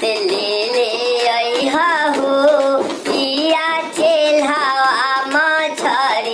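Bhojpuri folk-pop song: a high voice sings a wavering melody over a steady percussion beat, with no clear words.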